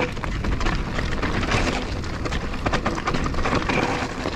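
Canyon Torque enduro mountain bike riding down a rocky singletrack: tyres crunching over loose stones and the bike rattling with many small, irregular knocks, over a steady low rumble.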